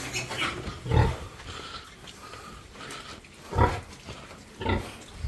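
Pigs grunting: three short, loud grunts, about a second in, then near the middle and again near the end.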